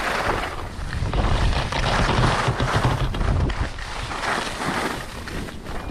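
Wind buffeting the microphone of a camera carried by a downhill skier, a ragged low rumble, under the hiss of skis sliding over the snow that rises and falls with the skier's turns.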